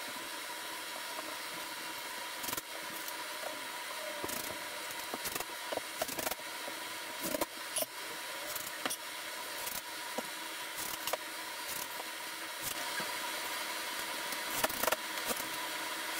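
Drywall being fitted by hand: scattered clicks, taps and knocks of the sheet and tools against the wall, a few of them louder in the middle and near the end, over a steady hiss and hum.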